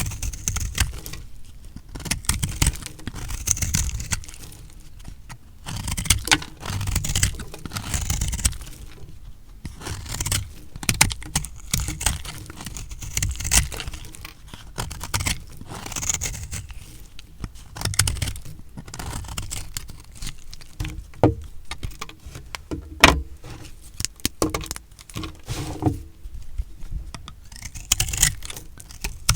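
A blade cutting through dry recycled soap, crunching and crackling in repeated cuts every second or two, with a few sharper knocks in the second half.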